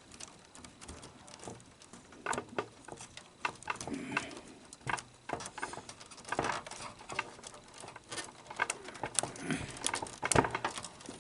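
Irregular small clicks, taps and rustling of wiring and plastic connectors being pulled and moved by hand inside a Sony SL-S600 Betamax VCR's chassis.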